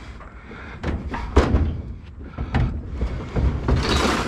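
Scrap items being handled: a handful of separate knocks and clunks, then a rougher scraping noise near the end.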